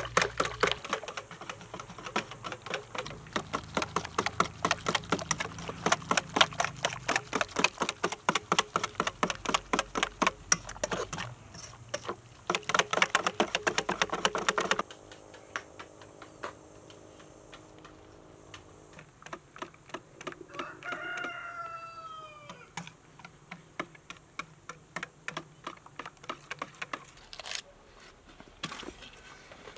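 Wire whisk beating batter in a stainless steel bowl, a fast run of metallic clinks that stops about fifteen seconds in. After it, a rooster crows once, about twenty seconds in, the call falling in pitch at the end.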